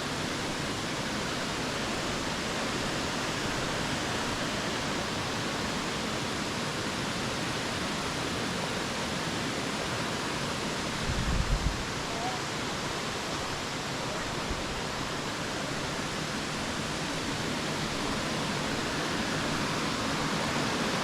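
Steady rushing of a waterfall cascading into pools. A brief low rumble about eleven seconds in.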